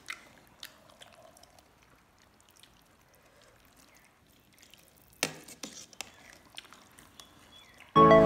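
Metal ladle stirring hot-pot soup in a steel pot, with scattered clinks of ladle on pot and light sloshing; the sharpest clinks come in a cluster about five seconds in. Music starts abruptly right at the end.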